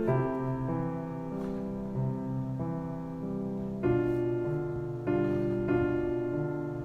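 Background music: an instrumental piano passage, chords struck about once a second and left to ring.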